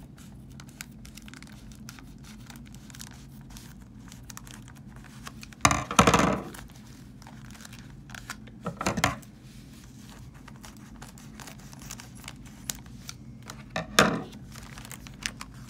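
Thin black plastic comic polybag being cut and torn open, with crinkling and small clicks throughout. Three loud rips of the plastic: a long one about six seconds in, a shorter one about nine seconds in, and a brief one near the end.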